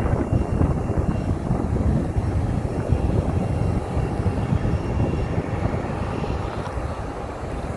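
Rumble of a Boeing 737's jet engines as the airliner climbs away after takeoff, slowly fading.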